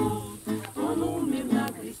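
A mixed group of men and women singing a Russian Christian song together in unison, to a strummed acoustic guitar, with short breaths between phrases.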